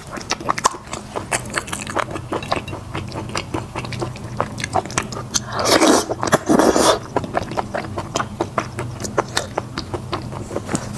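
Close-up eating sounds: wet chewing, smacking and gnawing on braised chicken and noodles. There is a loud slurp of wide flat noodles about six seconds in, lasting about a second and a half.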